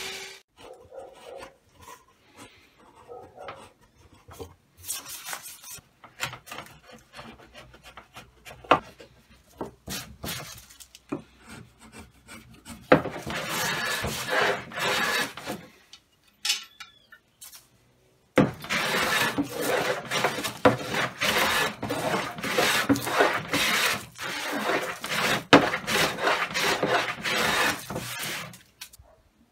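Metal hand plane shaving wood: a run of rasping strokes about 13 seconds in and a longer, steady run from about 18 seconds on. Before that, only light knocks and clicks of wood being handled.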